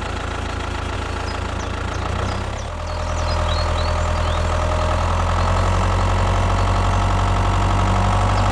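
Tractor engine idling steadily, getting louder about two and a half seconds in.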